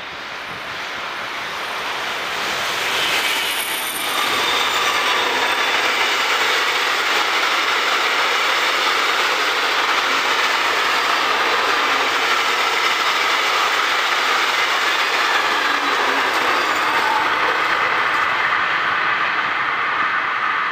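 A train approaching and passing close by: the noise builds over the first four seconds, then holds as a steady, loud rush of wheels on rails with faint high-pitched tones.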